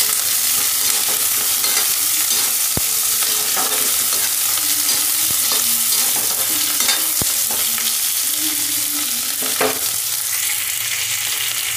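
Sliced onions and green chillies sizzling in hot oil in a kadhai, with a metal spatula scraping and stirring them at irregular moments.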